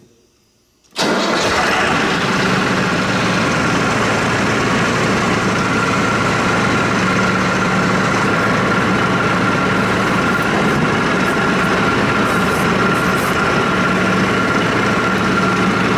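Mahindra 8560 tractor's diesel engine idling steadily, cutting in abruptly about a second in. From about six seconds on, a steady high whine joins it while the loader hydraulics are held at pressure against the test gauge.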